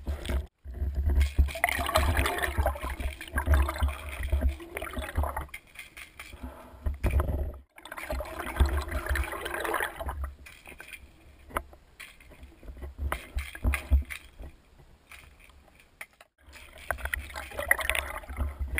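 Muffled water sloshing and rumble heard through a submerged camera, coming and going in surges with short breaks between.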